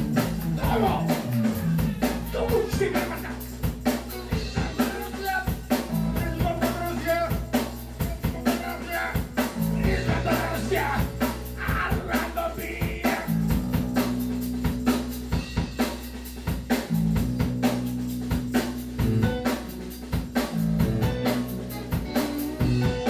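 Live rock band playing: a drum kit keeping a steady beat with snare and bass drum, under held bass-guitar notes, guitars and keyboard.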